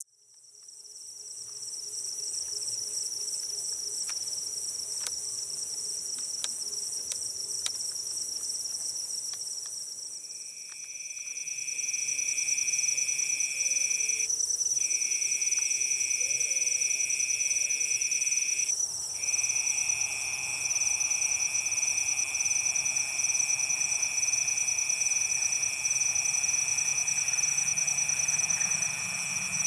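Night chorus of crickets and other insects: steady high-pitched trilling, joined about ten seconds in by a second, lower steady trill that breaks off briefly twice. In the second half a faint low rumble builds underneath as the distant train approaches.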